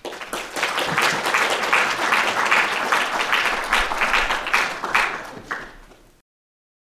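Audience applauding, many hands clapping at once. The clapping thins out near the end and cuts off abruptly after about six seconds.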